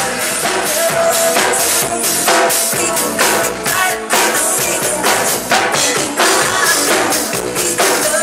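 Loud dance music with a live drum kit playing along: drum hits and cymbal crashes over a DJ's track.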